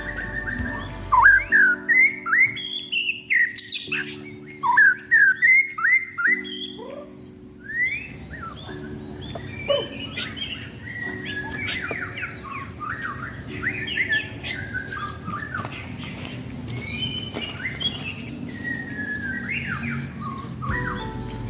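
White-rumped shama (murai batu) singing. Loud, rapid phrases of sweeping whistled notes fill the first several seconds. After a brief lull about seven seconds in, a softer, more varied run of chirps and whistles follows.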